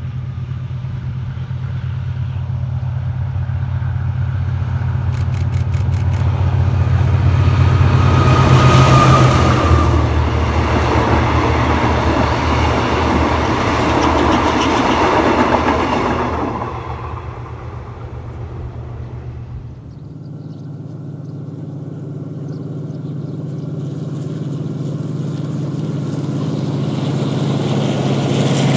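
Mid-century GE diesel-electric locomotive running as it approaches and passes at the head of a passenger train, its engine drone loudest about nine seconds in, followed by the coaches rolling by and fading away. About twenty seconds in the sound cuts to another GE diesel locomotive approaching, its engine growing steadily louder.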